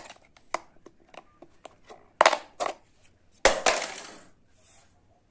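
Series of sharp clicks and knocks of hard objects, a few a second, with two louder cracks a little over two seconds in and a longer crunching clatter about three and a half seconds in.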